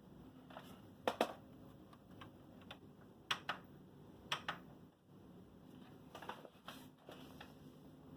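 Irregular light clicks and taps, about eight of them, as of buttons being pressed or plastic equipment being handled, over a faint steady hum.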